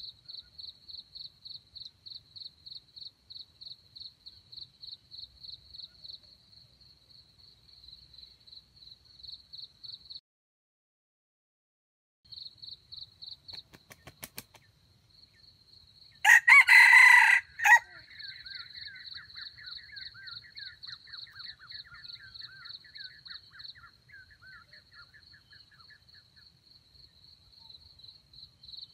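A red junglefowl (wild chicken) rooster crows once, a short crow of about a second and a half, some sixteen seconds in, just after flapping its wings. Crickets chirp in a steady fast pulse throughout, dropping out for about two seconds partway through.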